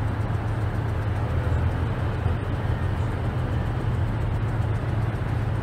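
A vehicle engine running steadily close by: an even low rumble with no change in pitch.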